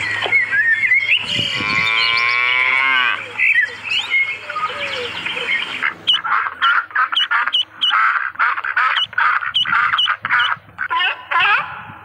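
Animal calls: a long call falling in pitch about two seconds in, among other calls, then from about halfway a quick run of short, high, repeated calls, about two or three a second.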